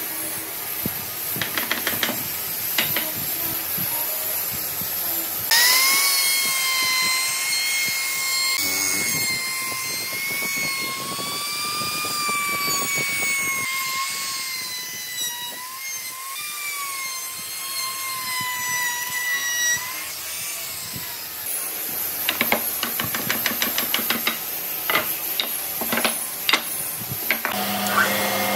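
Hammer knocks on a wooden frame, then a handheld trim router running and cutting along the wood's edge, its high whine wavering in pitch as it is worked along the cut. Near the end, after another run of sharp knocks, a router table's motor starts with a steady hum.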